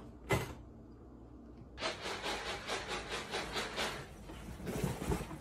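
A sharp knock, then a run of rhythmic scratching strokes, about four a second, that stops partway through, followed by fainter rubbing.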